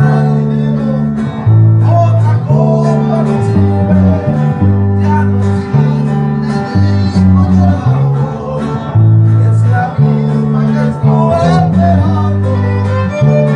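Live string band playing: a violin carries the melody over strummed guitar and a plucked upright bass that changes note about once a second.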